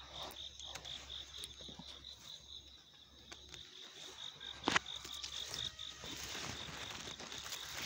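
A small animal calling in a steady, high, pulsed chirp of about five pulses a second. There is a single sharp click a little under five seconds in.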